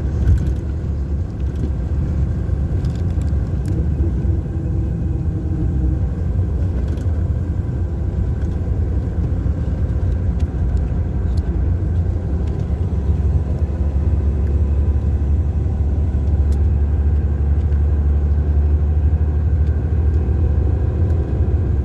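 Car driving along an open road, heard from inside the cabin: a steady low rumble of engine and tyre noise that grows a little louder in the second half.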